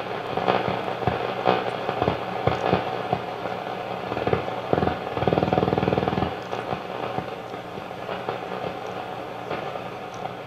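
Vintage Zenith 10S464 console tube radio tuned across the band: static full of crackles and clicks over a steady hum, with a louder buzz about five seconds in.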